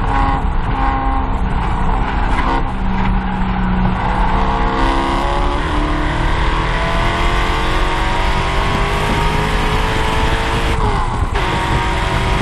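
C5 Corvette Z06's LS6 V8 heard from inside the cabin under hard throttle, holding steady through a long turn and then revving up rising in pitch as the car accelerates onto the straight, with a brief break near the end for a gear change.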